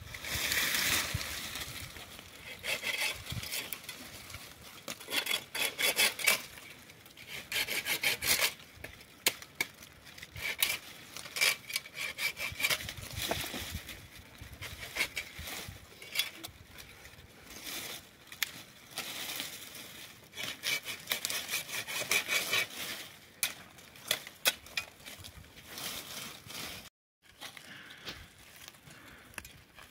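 Repeated rasping strokes of something rubbing or scraping against wood, in uneven runs, with a brief cut-out near the end.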